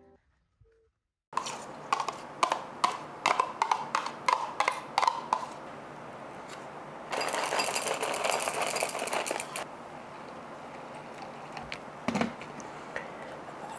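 Kitchen handling sounds while putting together a yogurt and cereal breakfast: a run of light clicks and taps for a few seconds, then a couple of seconds of crinkling from a plastic cereal pouch, and a single knock of something set down on a tray near the end.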